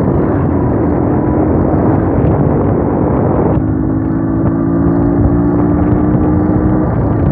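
Vehicle engines running at road speed, a motorcycle and a Massey Ferguson 240 tractor, with heavy wind rush over the microphone on the moving motorcycle. About three and a half seconds in the rush eases and a steady two-note engine hum stands out.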